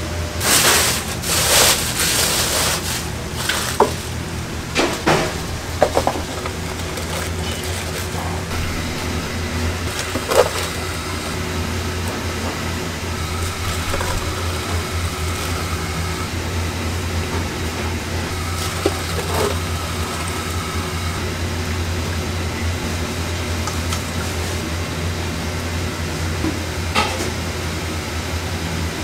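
Restaurant kitchen work over a steady low hum. Liquid sloshes and splashes for the first few seconds as a wire strainer is worked in a stockpot of broth. After that come a handful of sharp knocks of utensils against the pots.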